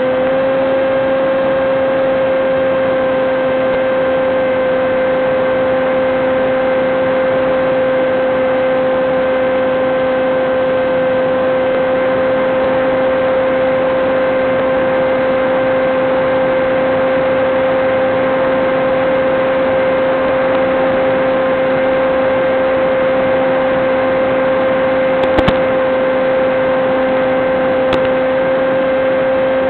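The electric motor and propeller of a Teksumo FPV flying wing droning at a steady throttle, heard through the aircraft's onboard microphone over the video link. The pitch holds almost constant, and two short clicks come near the end.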